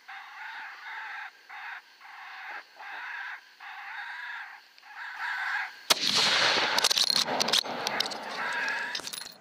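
A repeated crow-like call, about once a second, then a single rifle shot about six seconds in, fired at a coyote. The shot is followed by about three seconds of loud rustling and knocking.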